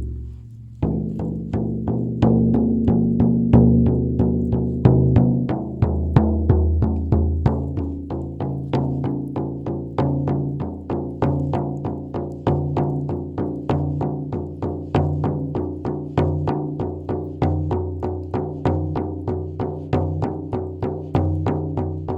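Instrumental music: a steady rhythm of ringing, pitched drum strokes, about two to three a second.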